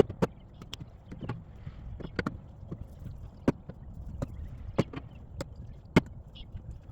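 Irregular sharp knocks of wood on wood, about a dozen spread unevenly, the loudest two about three and a half and six seconds in: pieces of ash firewood clunking together as they are handled.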